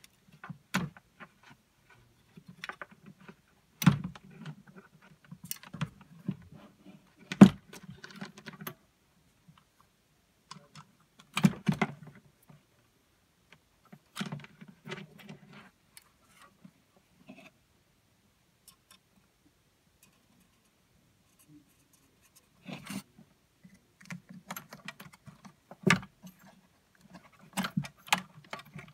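Hands working the wiring inside an Anchor Liberty portable PA speaker cabinet and unplugging its plastic power connectors: irregular clicks, knocks and rattles, with a quiet stretch of several seconds in the middle.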